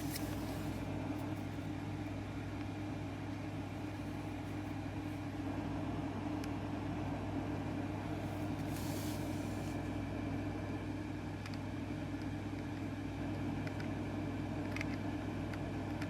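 Steady low hum of a fan or electrical equipment running, with a few faint small clicks and a brief soft hiss about nine seconds in.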